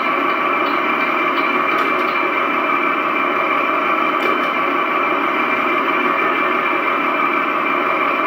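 RC Leopard 2A4 tank's sound unit playing a steady engine idle through its small onboard speaker, with a few faint ticks.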